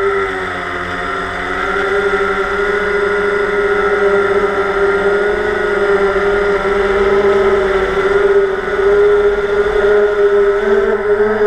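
DJI Phantom quadcopter's motors and propellers whining steadily, heard from the GoPro mounted on the drone itself. The pitch dips briefly about a second in and shifts slightly near the end as the throttle changes.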